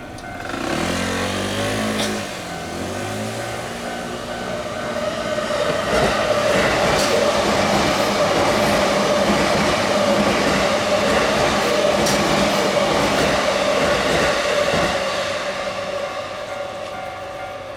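A JR train passing over a level crossing. It builds to a loud rush of wheels and rails in the middle and fades near the end, with a gliding motor whine in the first few seconds. The crossing's warning bell rings in a steady pulsed tone.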